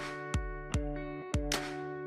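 Background music: sustained guitar-like chords with a light beat striking about twice a second.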